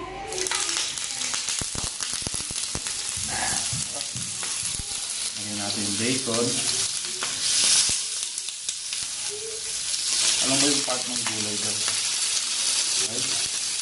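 Shrimp, broccoli and pork belly sizzling on a hot electric grill plate. The sizzle starts suddenly as the first piece goes on, and tongs click against the plate a few times about a second in.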